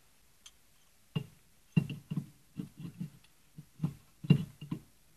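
A string of irregular sharp metallic knocks and clicks, starting about a second in: a tool working the 10 mm nut and plate off an old VW distributor, with metal parts knocking together.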